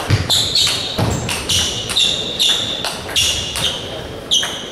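Table-tennis balls clicking sharply off tables and bats, about three irregular pings a second, each with a short high ring.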